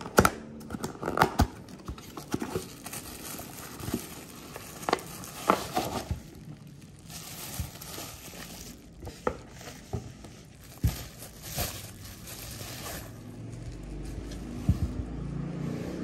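Packaging being handled by hand: a cardboard box is opened, then bubble wrap crinkles and rustles as a small radio is unwrapped. Irregular taps and clicks come from the handling.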